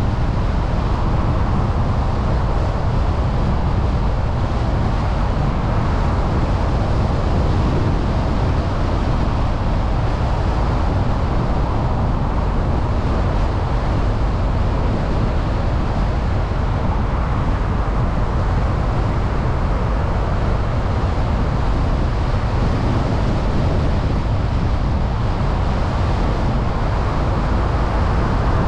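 A car driving steadily along a road: constant road noise from the tyres and engine, mixed with wind.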